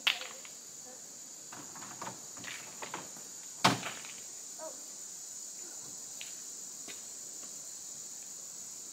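Rocks knocking together as they are handled and set down: a few sharp clacks, the loudest about three and a half seconds in. A steady high insect drone runs underneath.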